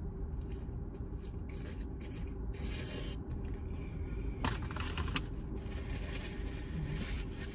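Close-up chewing of a bite of fried fish sandwich: soft crunching and wet mouth sounds in irregular strokes. In the second half a paper napkin rustles against the mouth. A steady low hum sits underneath.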